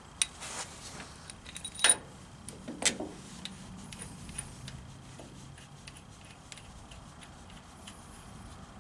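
Metallic clinks and taps of long steel bolts being handled and set into the mounting holes of a hydraulic control valve. The sharpest clinks come about two and three seconds in, followed by fainter scattered ticks.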